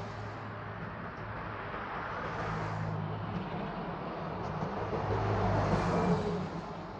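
Road traffic: passing motor vehicles, a steady tyre-and-engine noise with a low hum that swells twice, the louder pass near the end.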